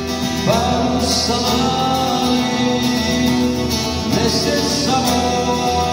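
Music: a song with guitar accompaniment and a singing voice holding notes.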